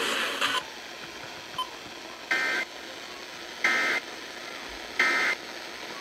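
Three short bursts of Emergency Alert System data tones over an FM radio's speaker, about 1.3 seconds apart over a faint hiss. Bursts this short, sent three times, are the End Of Message code that closes an EAS alert or test.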